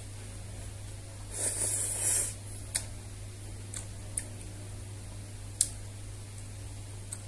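A long slurp of Korean spicy instant noodles about a second in, followed by a few short sharp clicks, over a steady low hum.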